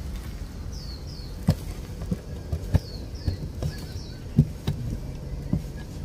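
Irregular low knocks and bumps of a camera being handled against a bamboo nest box, with a small bird's short high chirps that sweep downward, mostly in pairs, in the background.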